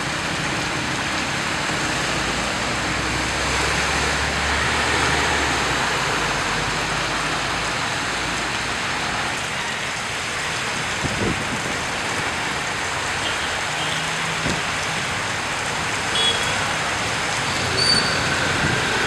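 Steady heavy rain with traffic driving through a flooded street: engines running and tyres splashing through standing water. A few short high chirps and light knocks come in the second half.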